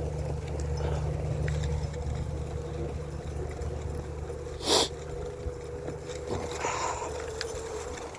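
Onewheel electric board running along a trail: a steady low rumble with a thin, even motor whine. A short, loud hiss-like noise comes about four and a half seconds in.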